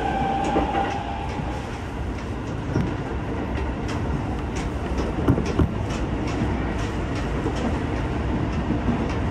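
Shin-Keisei Line local electric train running, heard from inside the carriage: a steady rumble of wheels on rail with scattered clicks and knocks. A steady high whine fades out about a second in.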